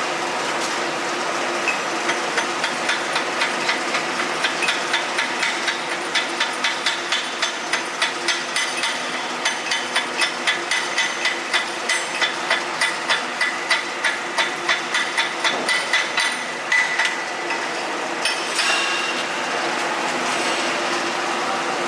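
A hammer striking in a quick, regular rhythm, about two to three blows a second, for some fourteen seconds, then stopping. A steady background hiss runs underneath.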